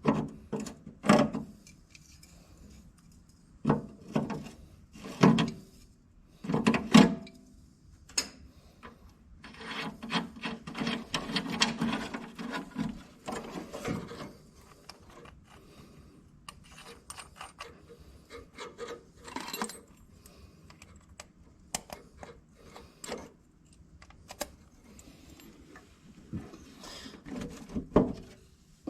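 Hand work on the backhoe's dash parts: irregular knocks and clunks of metal parts and tools being handled, with a longer stretch of scraping and rubbing about ten seconds in.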